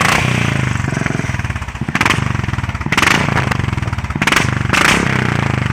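Royal Enfield Bullet Classic 500 single-cylinder engine running with its exhaust thumping in steady, evenly spaced beats, blipped louder briefly about five times.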